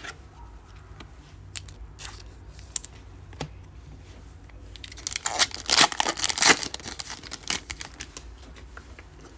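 Trading card pack wrapper being handled and torn open: scattered light rustles and clicks, then a burst of tearing and crinkling lasting about two seconds, about five seconds in.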